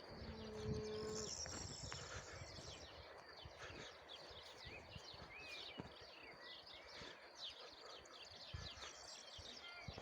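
Faint outdoor nature sound: many small birds chirping, with a brief low held call about half a second in and a thin high whine around the first two seconds.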